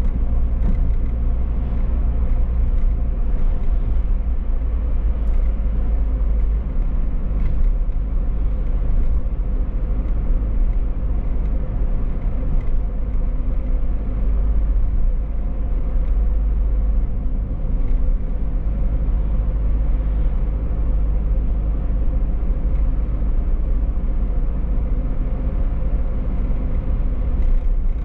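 A car driving at a steady pace, its engine and tyre noise a continuous low rumble with no big changes in speed.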